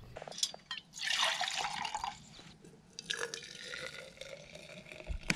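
Water running for about a second, then fainter water sounds.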